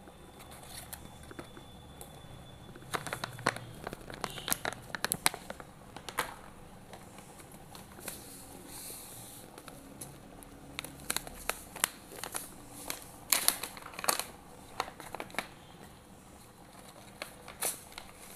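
Thin clear plastic packet of white crystals crinkling as gloved hands handle it, in irregular clusters of sharp crackles: a burst a few seconds in and another in the second half.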